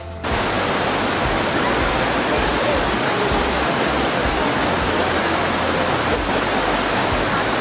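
Steady rush of a waterfall, cutting in suddenly just after the start.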